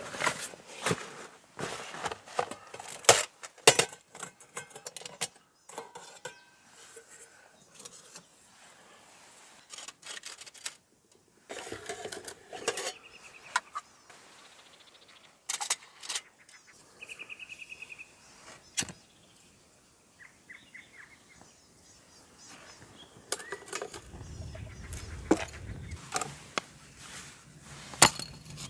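Stainless steel camp cookware and folding Firebox stove parts clinking and clattering in irregular sharp knocks as they are unpacked and set up. A low rumble joins in for the last few seconds.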